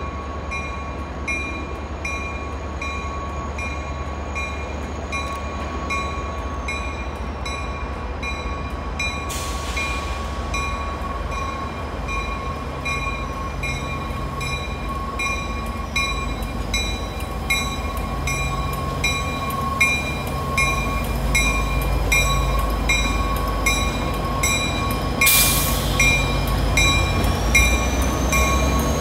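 MBTA EMD F40PH diesel locomotive approaching and passing at low speed, its engine rumble growing louder as it nears, while its bell rings steadily at about two strokes a second. A short hiss of noise comes twice, about a third of the way in and near the end.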